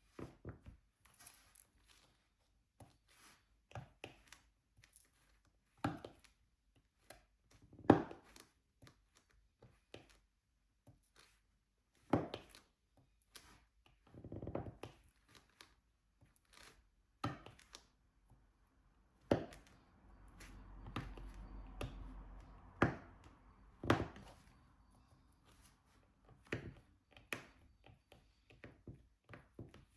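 Diamond painting: a drill pen picking up and pressing resin drills onto the sticky canvas, making irregular light clicks and taps, with a sharper knock about eight seconds in and a few seconds of rustling around twenty seconds in.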